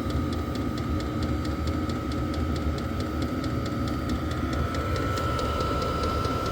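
Vevor diesel air heater running on high: the fuel dosing pump ticks steadily several times a second over a low rumble and a steady fan whine, which edges slightly higher in pitch about two-thirds of the way through.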